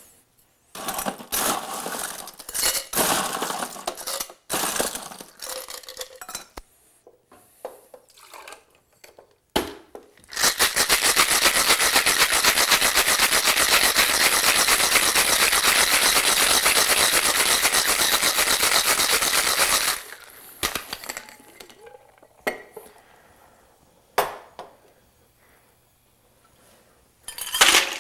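Cocktail shaker with ice shaken hard for about ten seconds, a fast steady rattle of ice against the shaker. Before it come irregular clinks and knocks of ice and glassware, and after it a few scattered knocks.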